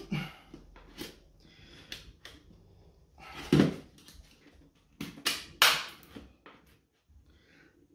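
Scattered clicks and knocks from hands handling the metal and plastic parts of a flat-screen TV's opened back during reassembly. There is a louder knock about three and a half seconds in, and short, bright rasps just after five seconds.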